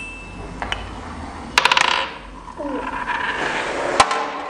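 Small hard objects clinking and clattering: a few sharp clicks, with a louder ringing clatter about one and a half seconds in and another click near the end.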